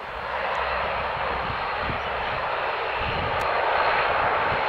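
Single-engine turboprop trainer aircraft running at high power as it rolls along the runway, a steady loud propeller and engine rush that swells at the start and holds.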